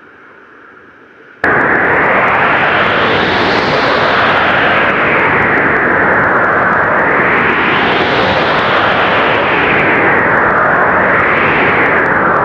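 Blizzard wind: a loud, even rush that swells and eases in gusts every few seconds. It cuts in suddenly about a second and a half in, after a quieter stretch of wind noise.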